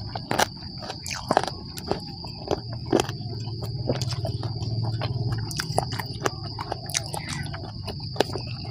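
Close-miked chewing of spicy chicken feet, with frequent sharp mouth clicks and smacks, over a steady high-pitched insect buzz. A low hum swells and fades around the middle.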